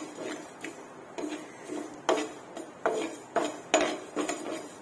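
A perforated metal spatula scraping and knocking on a non-stick frying pan as fenugreek seeds are stirred while dry-roasting, in a string of short strokes about two a second.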